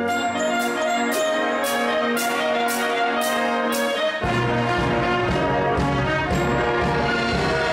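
Concert wind band playing, with sustained brass chords over crisp high percussion strokes about twice a second. Just over halfway a heavy low bass comes in and the sound fills out.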